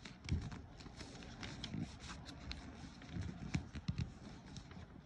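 Sheet of paper being folded and creased by hand against a smooth surface: soft, irregular rustles, scrapes and taps, with a few dull bumps from the hands pressing down.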